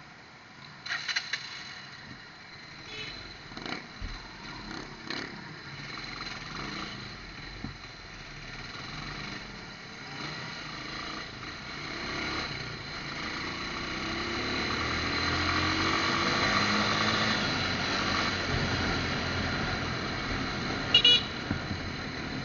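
Motorcycle riding in traffic. The engine and road noise grow louder from about ten seconds in, and near the end a vehicle horn beeps twice in quick succession.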